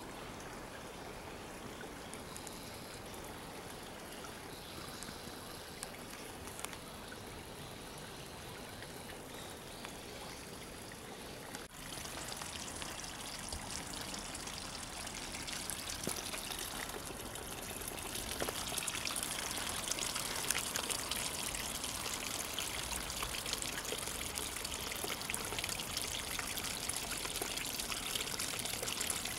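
Steady trickle of water from a bamboo spout splashing into a garden pond, growing louder and brighter in the second half.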